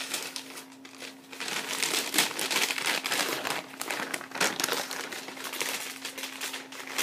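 A bag being handled and crinkled close to the microphone, a dense irregular crackle that starts about a second and a half in and keeps going, over a faint steady hum.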